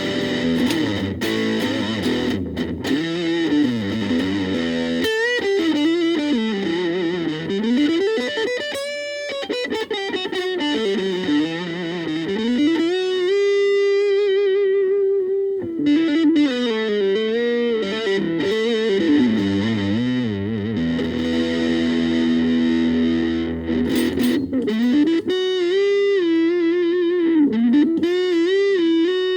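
Gaban Les Paul-type electric guitar played through a VOX Soundbox Mini amp: single-note lead lines with string bends and vibrato, some notes held and sustained.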